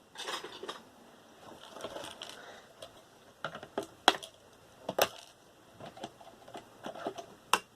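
Hands handling scrap from a dismantled desktop PC: a short rustle, then an irregular run of sharp clicks and clatters of small metal parts and copper wire, the loudest knocks about four, five and seven and a half seconds in.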